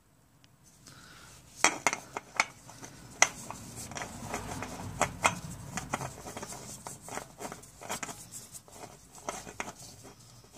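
Irregular light metallic clicks and clatter, starting about a second and a half in, from a new oil filter being fitted by hand under a car.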